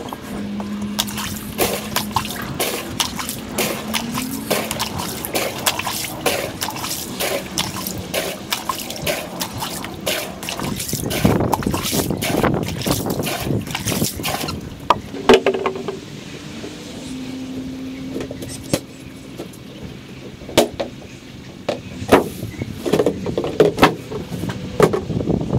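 Backyard sound sped up four times: water trickling through the hose draining an above-ground pool, with many sharp clicks and knocks over it, thinning out after about 15 seconds.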